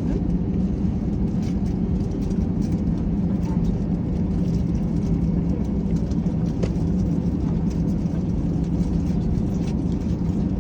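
Steady cabin noise inside an Airbus A321: the engines and airflow make an even, low rumble, with a few faint rattles from the cabin fittings.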